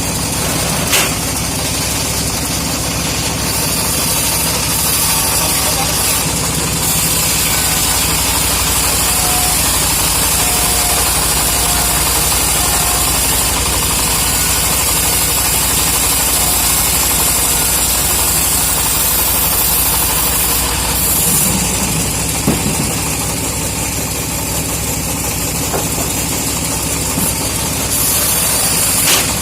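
Engine of a homemade log sawmill running steadily.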